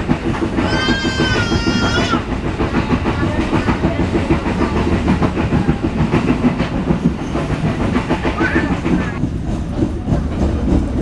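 Passenger train running along the track: a steady rumble with the clatter of wheels over rail joints. Short high wavering sounds break through about a second in and again near eight seconds.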